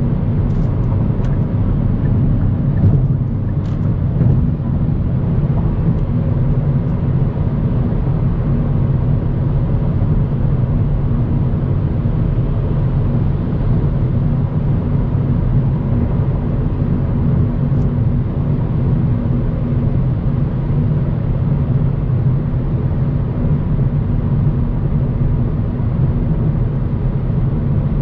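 Steady low drone of a car cruising at highway speed: engine hum and tyre noise on the road surface.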